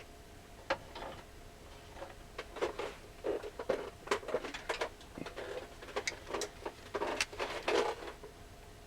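Irregular light clicks, taps and short scrapes of small tools and parts being handled on a workbench during electronics repair work.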